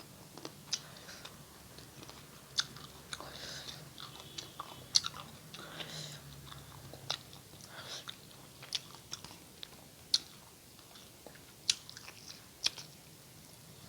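A person chewing a mouthful of food close to the microphone, with irregular sharp, wet mouth clicks and smacks.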